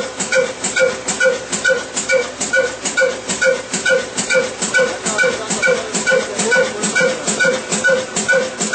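Old stationary diesel engine, about fifty years old, running steadily at slow speed while driving a flour mill: an even, loud beat of about two and a half strokes a second, each with a metallic ringing clank.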